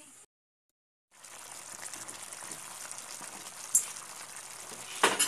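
Chicken adobo broth with potatoes and carrots simmering in a wok, a steady bubbling hiss, after the sound cuts out for under a second near the start. A sharp click about four seconds in and a short clatter near the end.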